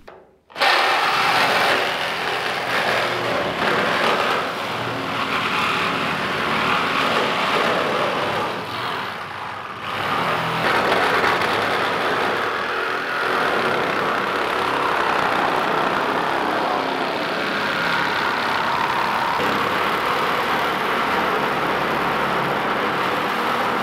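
Corded reciprocating saw (sawzall) cutting through the double-walled steel bed side of a 1971 Chevy pickup, running steadily with a short stop and restart about nine to ten seconds in.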